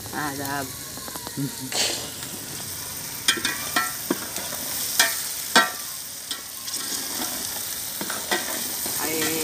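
Peas, tomato and spices sizzling as they fry in an aluminium pot, stirred with a long steel ladle that clinks and scrapes against the pot a handful of times.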